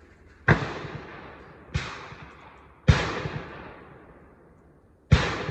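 Four rifle shots, fired singly at uneven spacing with a longer pause before the last, each followed by a long fading echo.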